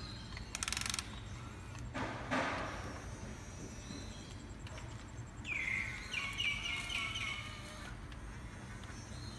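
Radio-controlled long-reach CAT 320D model excavator working its arm out of a sand pile: a short buzz of its electric gear motors under a second in, then a rush of sand about two seconds in. A few high chirps follow in the middle, over a steady low hum.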